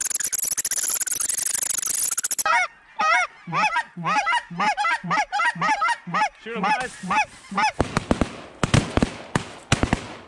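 Geese honking: first a dense wash of many geese calling together, then, from about two and a half seconds in, a rapid string of loud, close goose honks and clucks, each rising and falling in pitch. Several sharp clicks and knocks follow in the last two seconds.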